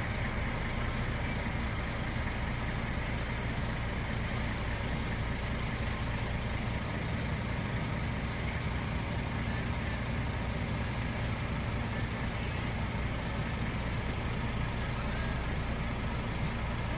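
Self-propelled sugar beet cleaner-loader at work, its engine and conveyor boom running in a steady, unbroken drone as it loads beet into a truck.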